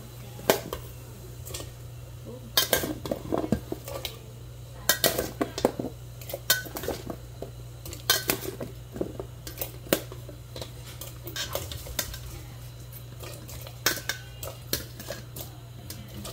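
A metal spoon clanking and scraping against a stainless steel bowl and an aluminium pot as chunks of cut squash are spooned from the bowl into the pot. The clanks come irregularly, some in quick runs of several strikes.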